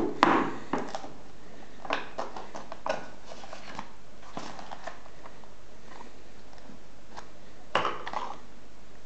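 Scattered short knocks, scrapes and rustles from hands opening a trading-card box: the hinged wooden inner box is opened and a card pack lifted out of it.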